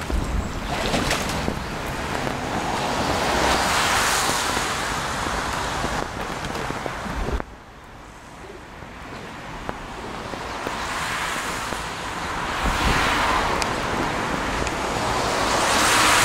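Wind buffeting the camera's microphone: a loud, rushing noise with low rumbles that swells and fades in gusts, drops away abruptly about seven seconds in, then builds again.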